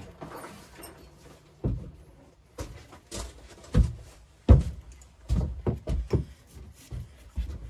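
Irregular clunks and knocks of hard objects being handled, about a dozen in all, the loudest about four and a half seconds in.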